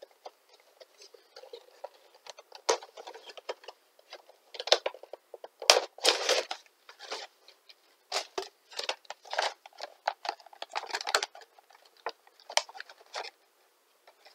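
Cardboard and plastic packaging of a Funko Pop vinyl figure box being opened and handled: irregular rustling, crinkling and sharp little clicks and taps as the figure is taken out.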